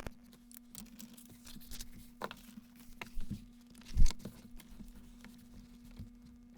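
Hand-handling noises: rustling and tearing with scattered taps and clicks, and one louder thump about four seconds in, over a steady low hum.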